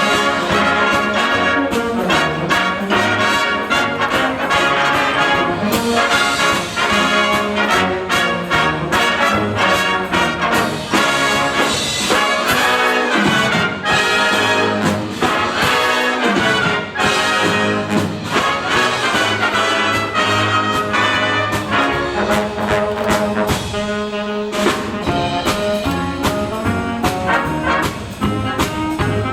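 High school wind band playing live: trumpets and trombones carry the tune over a steady drum beat.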